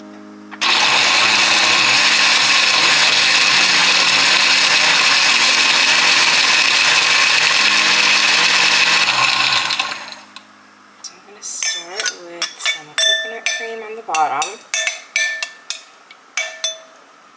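Countertop blender switched on and running at full speed for about nine seconds, blending a strawberry and almond-milk smoothie, then cutting off suddenly. Afterwards a metal spoon clinks repeatedly against a glass.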